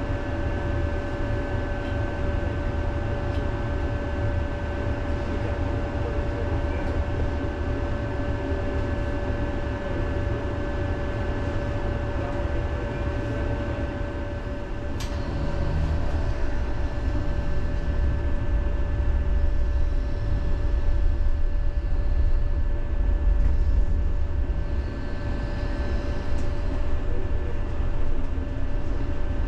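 Tram running on its rails, heard from inside the car: a low rumble of wheels on track with a steady high whine underneath. A single sharp click comes about halfway, and the rumble grows louder after it.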